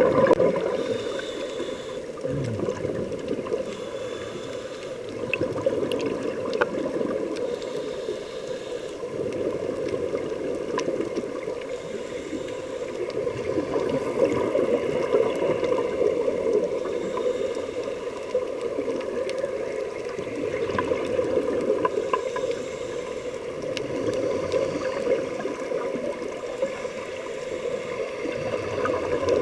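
Muffled underwater rushing and gurgling of scuba divers' exhaled regulator bubbles, heard with the camera submerged. It swells and eases in slow waves every several seconds.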